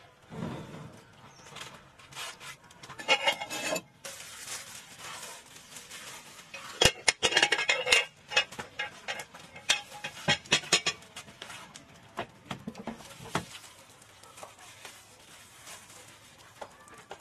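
Kitchenware being handled: metal pans and utensils clattering and knocking in irregular bursts, loudest about seven to eight seconds in, with scattered lighter clicks.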